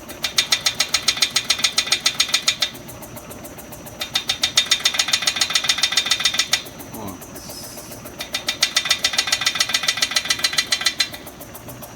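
Rapid rattling knock, about ten a second, in three bursts of two to three seconds, as a RuidCar shaker platform vibrates the 2007 Toyota Corolla's front wheel. The knock comes from the left brake caliper, typical of worn caliper slide pins on these cars.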